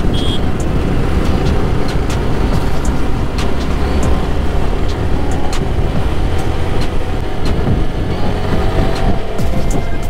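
Yamaha motorcycle engine running steadily at cruising speed, heard from on the moving bike, with wind rushing over the microphone.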